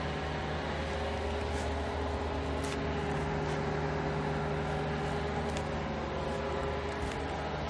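Steady mechanical hum with a constant hiss and a few faint, irregular ticks.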